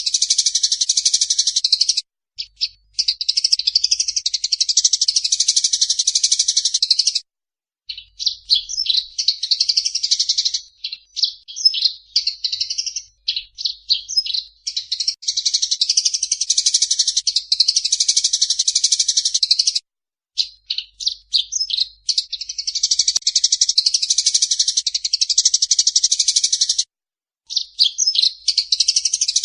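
Eurasian tree sparrows calling in a fight: long runs of fast, dense chattering lasting several seconds each, alternating with spells of separate sharp chirps and a few short pauses.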